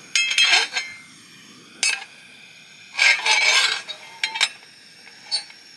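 Cast-iron tawa (flat griddle) being handled: metallic clinks with short ringing at the start, a scraping rattle about three seconds in, and a few sharp clicks in between.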